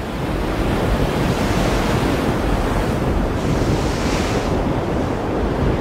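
Storm-force wind and heavy breaking seas: a continuous loud rush of wind and surf, with low rumbling wind buffeting on the microphone. A brighter hissing surge comes about three and a half seconds in.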